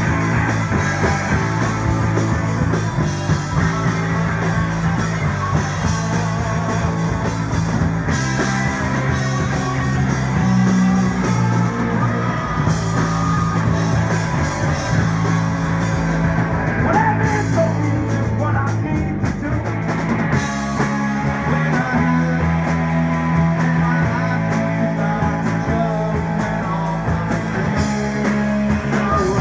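Live rock band playing loud and without a break: amplified electric guitars over drums.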